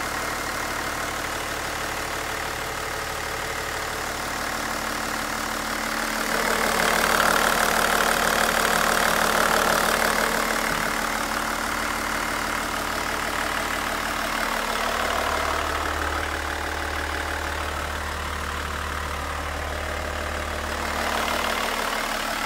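Toyota 1HD 4.2-litre straight-six diesel engine idling steadily, heard through the open engine hatch; it grows louder for a few seconds about six seconds in, and a deeper hum strengthens in the second half.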